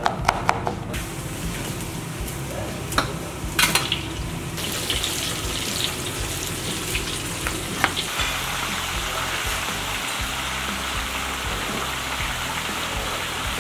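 A knife chopping garlic on a wooden board gives a few sharp taps at the start. Then hot oil sizzles steadily in a kazan as chicken fries and potatoes and tomatoes are stirred with tongs, with a few clicks of the tongs. The sizzle grows denser about two-thirds of the way in.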